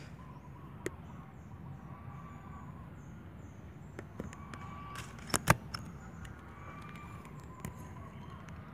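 Footsteps on dry leaf litter, with scattered sharp clicks and crackles, the loudest pair about five and a half seconds in, over a steady low outdoor rumble.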